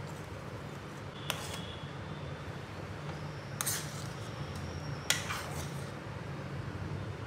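A steel spoon stirring thick kheer in a metal pot, with soft squelching and three sharp clinks of spoon against pot, the last about five seconds in the loudest. A steady low hum runs underneath.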